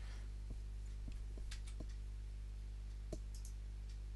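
A handful of short computer keyboard clicks, irregularly spaced, over a steady low hum.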